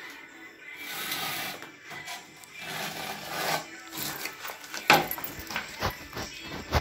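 Irregular scraping and rubbing of a trowel working cement tile mortar, with sharp knocks about five seconds in and again near the end.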